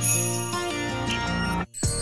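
Background music that cuts out for a moment near the end, then starts again.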